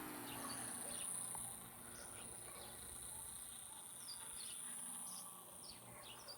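Faint outdoor ambience: a steady high insect drone with short, scattered bird chirps.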